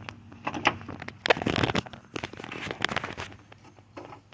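Handling noise: irregular clicks, light knocks and rustling as hands handle small parts and wiring against the saw's housing, with a louder scraping rustle about a second and a half in.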